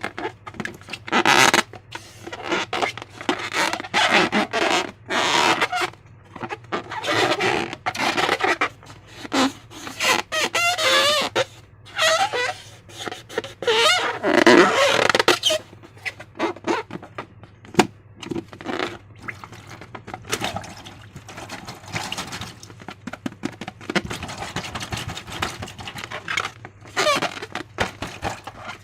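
Slime being squeezed and kneaded by hand, making irregular wet squelches in quick bursts, with a few short squeaks about halfway through.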